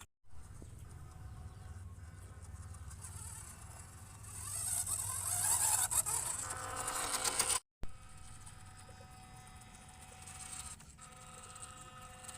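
Small electric motor and plastic gearbox of a WPL D12 RC truck whirring and buzzing, getting louder in the middle, with two brief dropouts to silence.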